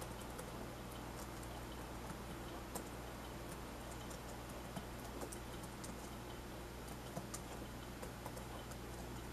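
Room tone: a steady low hum and hiss with faint, scattered light clicks at irregular intervals.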